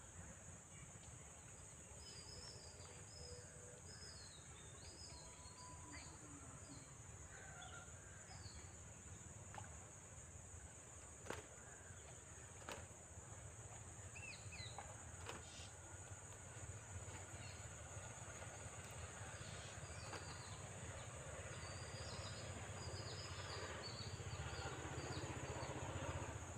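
Faint rural ambience: a steady high insect drone, with small birds chirping in short runs early on and again near the end. A few sharp clicks stand out in the middle.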